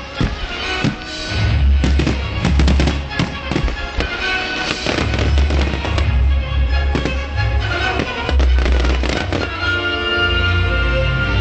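Fireworks going off in rapid bangs and crackles, mixed with loud music; the bangs stop about ten seconds in, leaving only the music.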